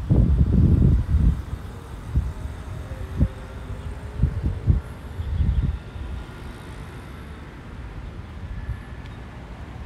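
Outdoor ambience with irregular low rumbling bursts, loudest in the first second and again between about three and six seconds in, then a steadier low background.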